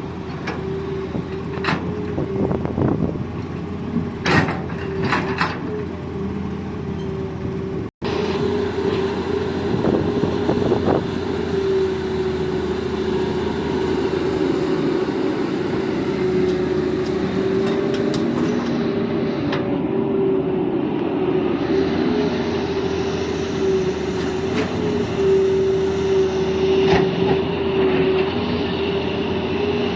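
Hitachi hydraulic excavator working, its engine and hydraulics giving a steady drone, with several sharp knocks in the first few seconds. The sound cuts out for an instant about eight seconds in.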